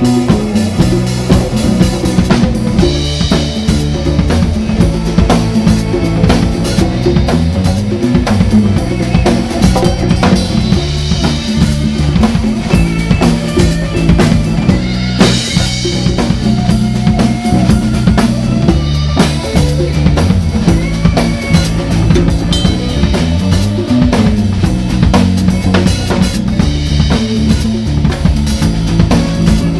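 Live band playing a steady groove, led by drum kit and hand-played congas over a low bass line.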